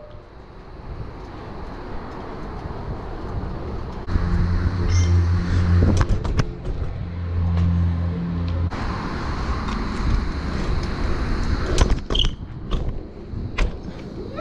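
BMX bike rolling over concrete, with tyre noise and wind rumble on the bike-mounted camera's microphone and a steady low hum for several seconds in the middle. A few sharp knocks sound near the middle and toward the end.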